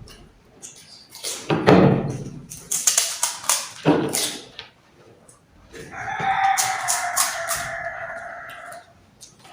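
A rooster crows once, a long call of about three seconds in the second half. Before it come loud close knocks and crunchy rustles near the microphone.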